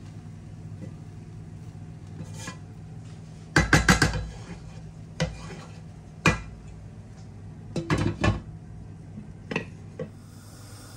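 Spatula scraping and knocking against a cooking pot as steamed rice is turned and fluffed, with a quick run of taps about four seconds in and more knocks around six and eight seconds. A glass lid is set on the pot with a clink near the end.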